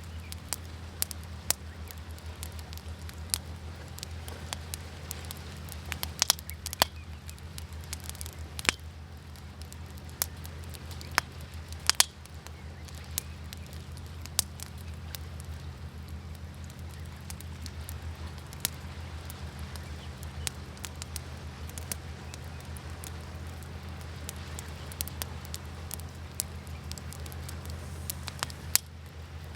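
Wood fire crackling, with irregular sharp pops, a few of them loud, over a steady low rumble.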